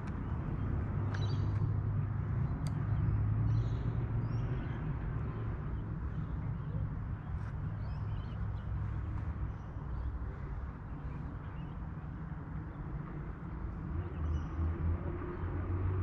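Outdoor ambience: a steady low rumble with faint bird calls scattered through it and a few light clicks.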